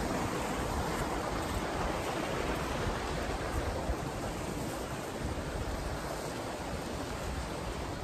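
Fast-flowing stream rushing over rocks: a steady wash of water noise that slowly gets a little quieter.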